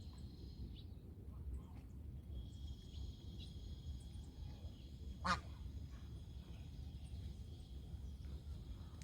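A goose gives a single short, loud honk about five seconds in, with a few fainter calls around it, over a steady low rumble.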